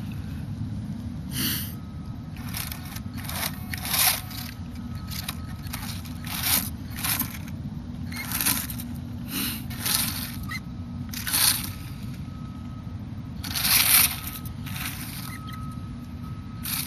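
Dry leaf litter and twigs crunching in irregular bursts, roughly once a second, as a mini RC truck crawls through the woods. Underneath runs a steady low rumble, and a faint thin whine comes and goes.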